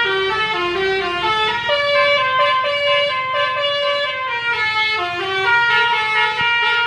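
Bus telolet horn, a Basuri multi-trumpet air horn, playing a melody: loud held notes that step up and down, several tones sounding together.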